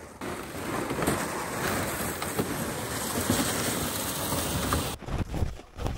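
Loaded plastic ice-fishing sleds being dragged over snow: their hulls slide and scrape with a steady, grainy hiss that stops suddenly about five seconds in.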